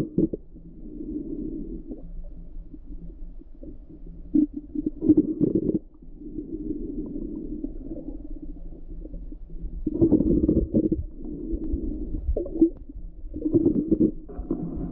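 Muffled underwater noise picked up by a submerged camera: a steady low rumble of moving water, with louder surges and short knocks every few seconds.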